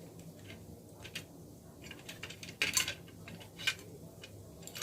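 Scattered small clicks and taps of a plastic switch board and fan regulator being handled while a wire is worked out through the board's side. The loudest cluster of clicks comes about two and a half seconds in.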